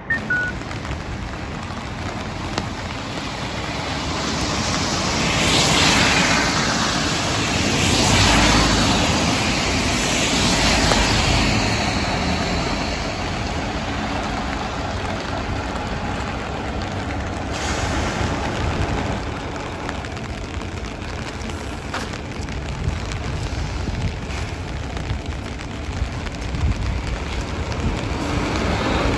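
Highway coach moving off along a rain-wet street, its diesel engine running under the hiss of tyres on the wet road. The sound swells as the coach passes, from about five to eleven seconds in, then settles to a steady wash.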